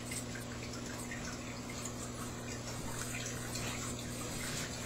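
Steady hiss with a low electrical hum, the background noise of the recording, with a few faint small ticks.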